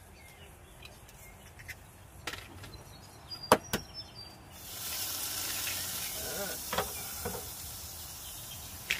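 Eggs knocked and cracked on the rim of a stainless steel mixing bowl: a few sharp knocks, two close together about three and a half seconds in, another near the end. A steady hiss comes in about halfway through and slowly fades.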